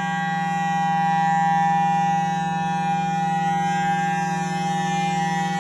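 Federal Signal Thunderbolt outdoor warning siren sounding its steady alert signal: a loud, unwavering two-tone chord over a low drone, swelling slightly in loudness about a second and a half in.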